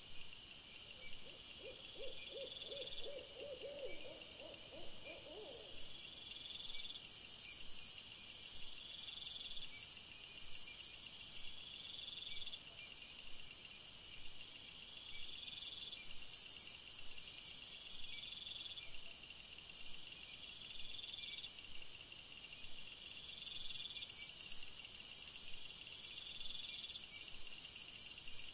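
Night insects, crickets and bush crickets, trilling in several high, evenly pulsed layers that swell and fade in bouts every few seconds. A quick run of low hooting notes sounds from about one to six seconds in.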